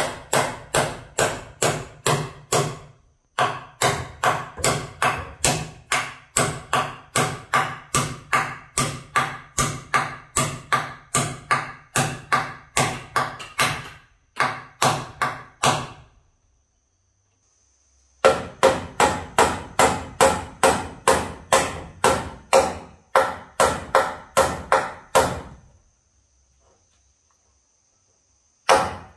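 Steady hammer blows, about two to three a second, each one ringing briefly. They come in long runs, with short breaks and one longer pause of about two seconds past the middle.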